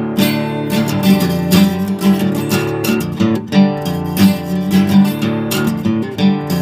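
Acoustic guitar strummed, chords ringing on between strokes in an instrumental passage of a song.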